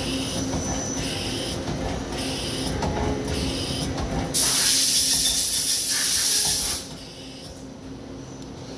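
Daewoo Puma CNC lathe running with a steady hum and a regular pulsing hiss. About halfway through, a loud hiss starts and lasts about two seconds, then cuts off.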